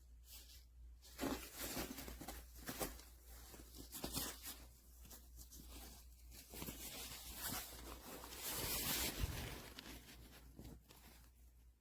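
A fabric laptop backpack being handled: nylon rustling, small knocks and a zipper being worked, with a longer, louder stretch of zipping or rustling about nine seconds in.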